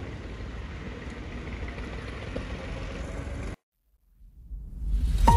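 Steady outdoor background noise with a low rumble, which cuts off abruptly about three and a half seconds in. After a brief silence, background music with mallet percussion fades in near the end.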